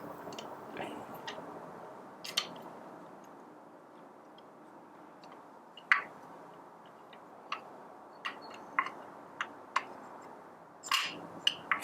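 Irregular light clicks and taps of small parts being handled as the micro adjustment cam is worked into a Baratza Forte grinder's gearbox, with one sharper click about six seconds in.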